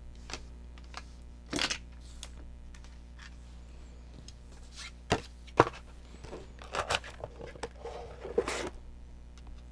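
Objects handled on a tabletop: scattered clicks and knocks, the sharpest two about five and five and a half seconds in, with bouts of rustling near the end, over a steady low hum.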